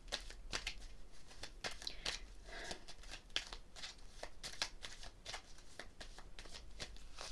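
Tarot cards being shuffled and handled: a quiet, irregular run of soft card flicks and slides.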